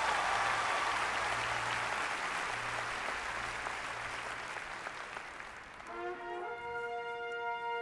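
Large stadium crowd applauding and cheering, slowly fading. About six seconds in, the drum corps hornline comes in with a held brass chord.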